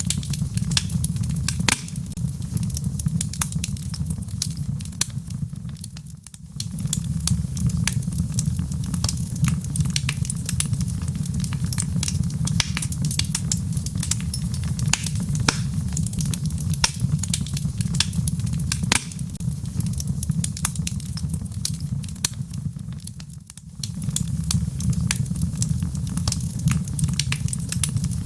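Logs burning in a fireplace: a steady low rumble of the flames with frequent sharp crackles and pops. The sound sags briefly twice.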